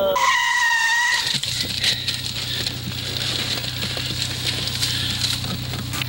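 A car's tires give a high squeal for about a second. Then the engine runs with a steady low hum and road noise, heard from inside the moving car.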